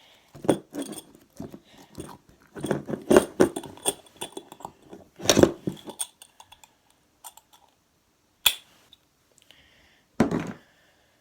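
Floam slime full of foam beads being squeezed and stretched in the hands: a dense run of sticky clicks, crackles and squishes for about six seconds, then a few single clicks and one short squish near the end.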